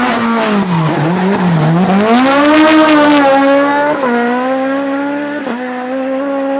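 Competition car's engine revving hard. The pitch falls and climbs twice early on, rises to a peak about three seconds in, then holds high with two sharp short dips, about four and five and a half seconds in.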